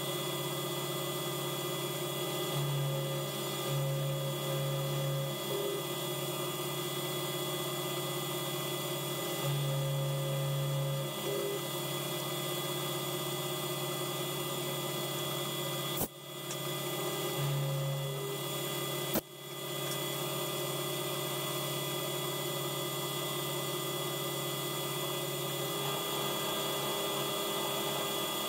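AL960B mill drill running steadily with a motor hum, swelling louder a few times as the end mill works the aluminium hand wheel. Two sharp clicks with brief drops in level come about two-thirds of the way in.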